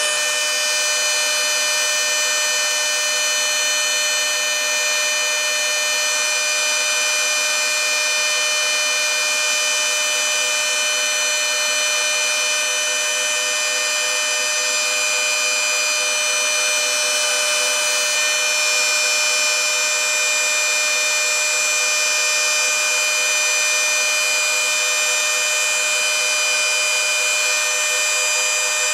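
Four trim routers (Kobalt, Makita, Bauer and a cheap unbranded one) running together at top speed with no load, a loud, steady whine made of many high tones at once.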